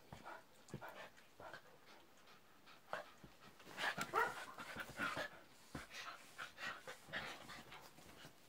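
Pet dogs panting and moving about on a bed, with soft rustling and a few short whines about four to five seconds in.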